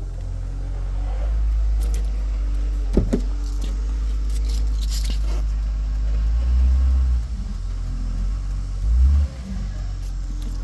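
A 2003 Jeep Liberty's 3.7-litre V6 running with a steady low rumble that swells a couple of times. Several light clicks and rattles come in about two to five seconds in.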